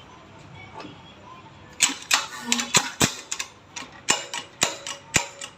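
A run of sharp metal-on-metal strikes, about three a second and unevenly spaced, starting a couple of seconds in: a hammer tapping on an engine part during repair work.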